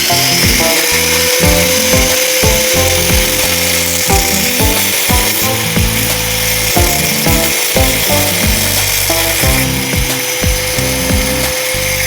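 A power tool running steadily with a constant whine, under background music with a beat.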